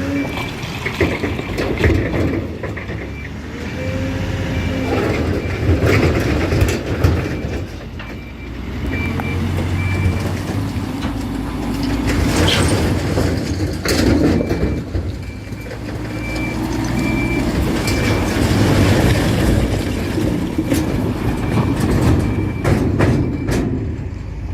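Diesel earthmoving machinery, a backhoe loader and a bulldozer, running under load while pushing marble waste rock, with repeated clanks and knocks of rock and steel. A high repeating beep sounds through most of the first ten seconds and again for several seconds after the middle.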